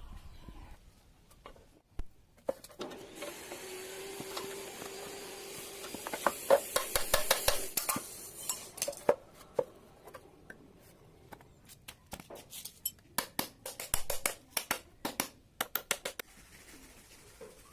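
Light metallic clinks and clanks, many of them in quick runs, with a steady hiss for several seconds in the first half.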